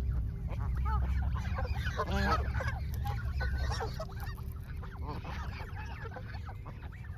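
A flock of Canada geese honking, many short calls overlapping, thinning out in the second half, over a steady low rumble.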